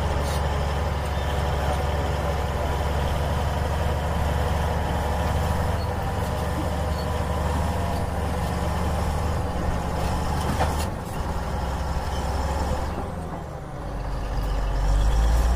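Heavy diesel engine of earthmoving machinery, most likely a bulldozer, running steadily with a deep low hum. It dips briefly near the end and then grows louder.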